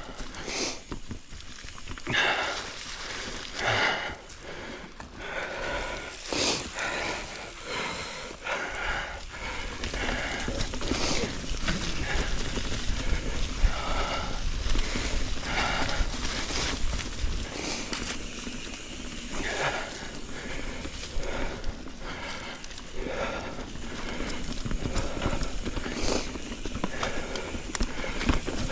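Mountain bike tyres rolling and crackling over dry fallen leaves on a dirt trail, with irregular rattles and knocks from the bike and a low wind rumble on the action-camera microphone. The noise grows louder about ten seconds in as the bike picks up speed.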